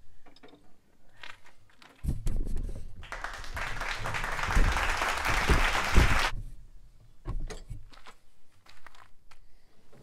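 Socket ratchet clicking as a bolt holding an RV refrigerator in its wall opening is turned. About two seconds in, a loud burst of noise with a few low thumps takes over for about four seconds and then stops suddenly.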